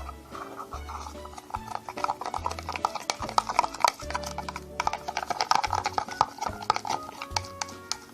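Background music with held low bass notes that change about once a second, over many quick, sharp clicks and taps.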